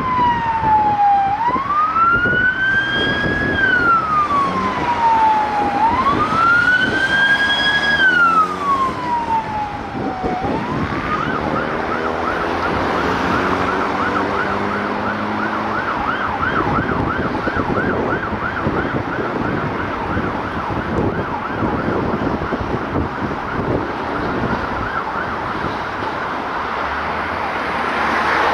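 Emergency vehicle siren on the move, a slow rising-and-falling wail that switches about eleven seconds in to a fast, rapidly repeating yelp. The vehicle's engine is heard beneath it, rising in pitch as it accelerates.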